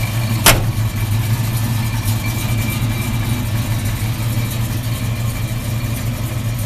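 1972 Chevrolet pickup truck's engine idling steadily, with a single sharp click about half a second in.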